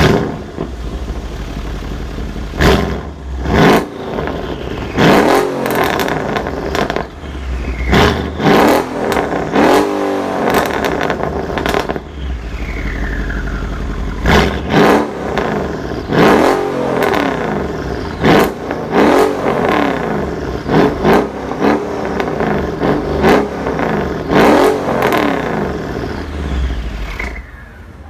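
Mercedes CLS 63 AMG twin-turbo V8 exhaust, fitted with Supersprint downpipes and a stage 2 tune, being revved while stationary: a sharp flare at the very start, then a low idle broken by about twenty quick throttle blips, each rising and falling in pitch. The engine sound stops just before the end.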